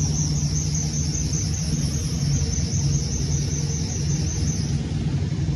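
Diesel semi-truck engines idling, a steady low rumble. A high chirping pulses about four times a second and stops shortly before the end.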